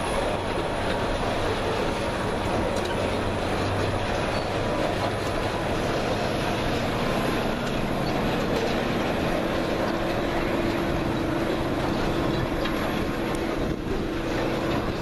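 Freight train's boxcars rolling past, a steady rumble and rattle of wheels on the rails, with a steady wheel squeal coming in about halfway through.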